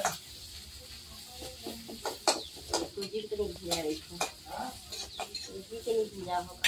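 Metal ladle stirring and scraping in a metal kadhai as food fries in hot oil, with a light sizzle under a run of sharp scrapes and clinks from about two seconds in.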